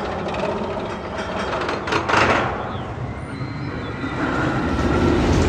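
Magnum XL-200 roller coaster train rattling and clicking along the track, with a sudden loud rush about two seconds in and a low rumble building near the end.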